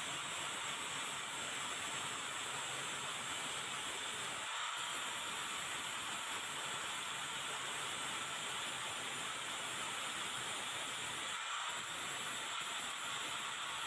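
Electric angle grinder running with an abrasive disc against a rusted steel part, a steady grinding noise that changes briefly twice.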